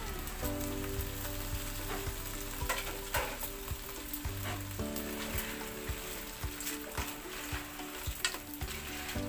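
Small crabs in coconut milk sizzling in a frying pan on a gas burner, the fresh coconut milk just poured onto the hot crabs. A metal spatula clicks and scrapes against the shells now and then as they are stirred.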